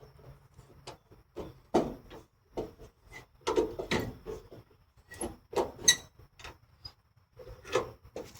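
Irregular knocks, taps and clinks of hand work on small steel parts and tools, with a couple of short ringing metallic clinks about two-thirds of the way through.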